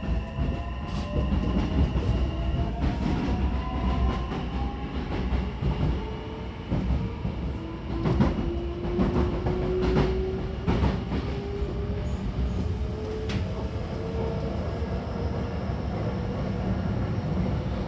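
Hankyu commuter train running between stations, heard from inside the car: a low rumble with an electric motor whine whose pitch climbs slowly as the train gathers speed. Sharp clacks from the wheels come now and then.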